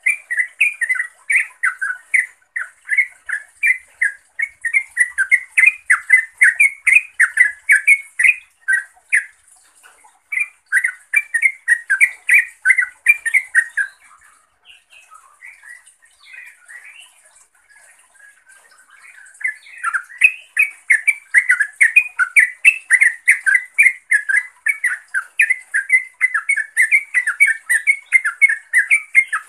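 Yellow-vented bulbul (trucukan) calling to rivals and companions: a fast, even run of short chattering notes. About halfway through it breaks off into a few seconds of softer scattered notes, then picks up again.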